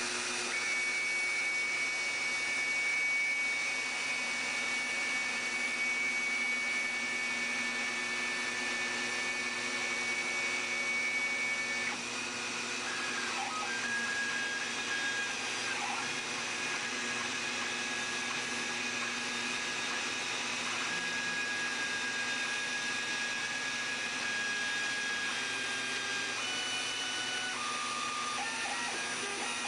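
Homemade CNC router at work: its Roto-Zip rotary-tool spindle runs steadily as the bit cuts a sheet, while the axis drive motors add steady tones that stop and change pitch every few seconds as the gantry moves.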